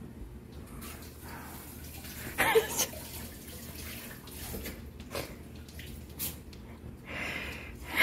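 A pen scratching across the wall in short drawing strokes as a face is drawn, with a short vocal sound about two and a half seconds in.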